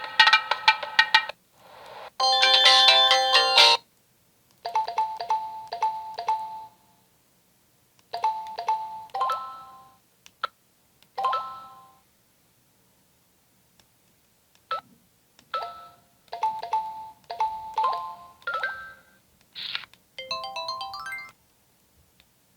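Samsung Anycall SCH-S140 slide phone playing a string of short 64-polyphony ringtone and alert jingles, each a second or two long, with silent gaps between them. A couple of single short clicks fall in the gaps.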